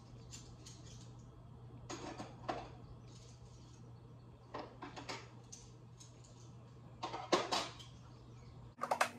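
Kitchen clatter of dishes and utensils being handled on a counter: several short clusters of clinks and knocks, over a steady low hum. A louder burst of knocks comes near the end.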